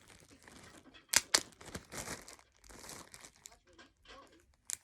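Snack packaging being handled: crinkling and rustling in short bursts, with two sharp snaps about a second in and another near the end.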